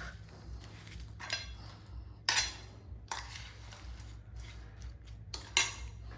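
Crockery and cutlery clinking and knocking, with two sharper clatters about two and a quarter and five and a half seconds in.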